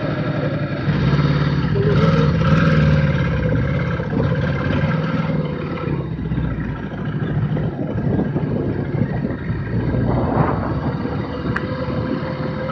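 Enduro motorcycle engine running just after being started. It revs up about a second in, then runs on steadily.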